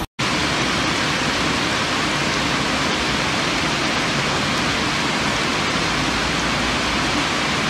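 Heavy hailstorm precipitation falling: a dense, steady hiss that cuts in after a brief gap at the start.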